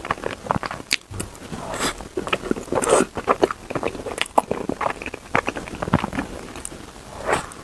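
Close-miked chewing and biting, with many short wet mouth clicks and smacks in an irregular stream.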